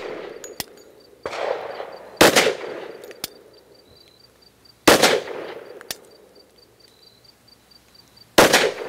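Three shots from a Glock 40 Gen4 MOS 10mm pistol, fired slowly, about 2.5 to 3.5 seconds apart, each ringing out for about a second. A fainter, duller bang comes about a second in.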